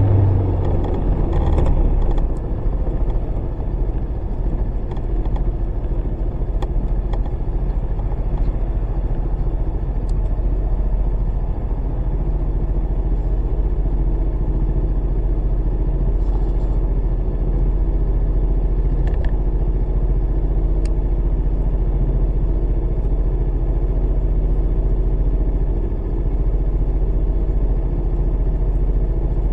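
Honda PCX125 scooter's single-cylinder engine dropping in pitch as the scooter slows in the first couple of seconds, then idling steadily while stopped.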